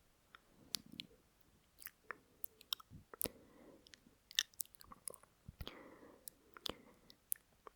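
Close-miked lip and mouth noises from a voice performer: wet clicks and smacks scattered at an irregular pace, with soft breaths in between. These are the stray mouth sounds and pre-line breaths left over from voice recording.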